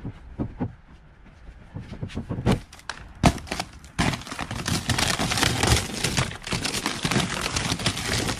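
Scattered knocks and clicks of handling, then from about four seconds in a dense rustling and crackling as hands rummage through a basket of stored items and papers.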